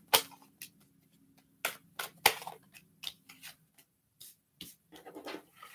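Tarot cards being handled and shuffled: a string of irregular light snaps and taps, the sharpest near the start and around two seconds in.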